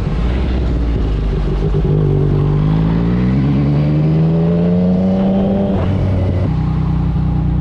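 Yamaha MT-09's three-cylinder engine through a Yoshimura R55 slip-on exhaust, pulling in gear with its pitch rising slowly from about two seconds in, then dropping suddenly near six seconds and running on lower. Wind noise runs under it while riding.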